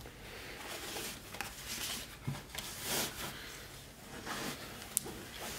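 Folded linen bedding being gripped and worked out of its fabric bag: soft, faint fabric rustling in a few swells, with one small click near the end.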